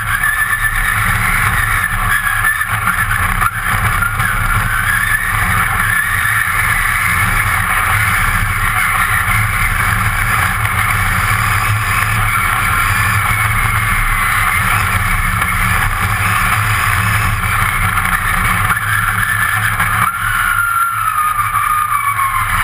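Race car engine heard from inside the stripped, roll-caged cabin, running loudly with its pitch rising and falling with the throttle, then dropping away near the end as the car slows.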